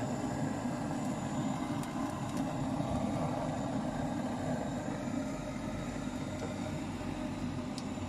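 Handheld butane gas torch burning with a steady roar as its flame is held on a glue patch on a refrigerator evaporator plate to burn it off.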